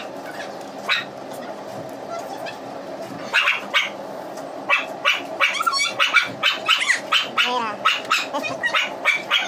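A dog barking and yipping repeatedly in short, quick calls, starting about three seconds in.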